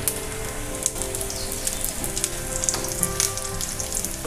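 Tempering spices (mustard seeds, urad dal, chopped onion, dried red chilli and curry leaves) sizzling and crackling in hot oil in a frying pan, with scattered sharp pops, just as asafoetida powder goes in.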